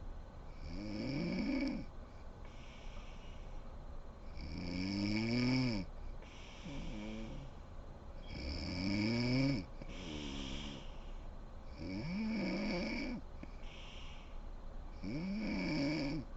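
A sleeping woman snoring: five pitched snores, about one every three and a half seconds. Each snore rises and then falls in pitch, with quieter breaths between them.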